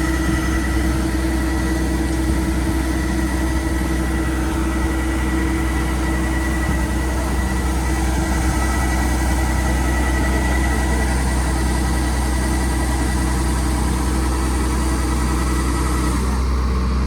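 An engine running steadily, with a constant hum and a steady high whine that cut out near the end.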